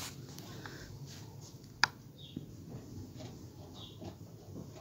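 Faint handling of soft biscuit dough rounds being set on a ceramic plate, with one sharp click a little under two seconds in and two brief high chirps.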